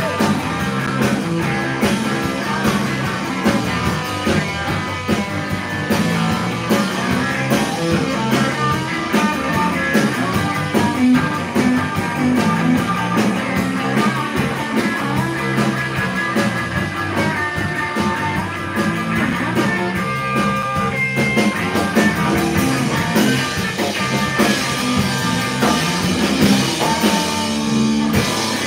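Live rock band playing electric guitar, electric bass and drum kit.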